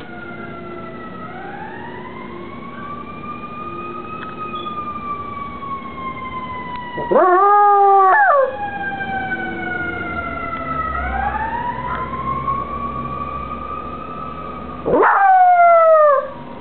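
A siren wails in the background, rising and falling slowly. A Cairn terrier gives two short, loud howls over it, the first about seven seconds in and the second near the end.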